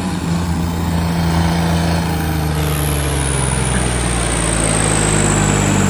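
Tractor and car engines running steadily under load, with a rushing noise over them. A thin high whine comes in about halfway and slowly falls in pitch.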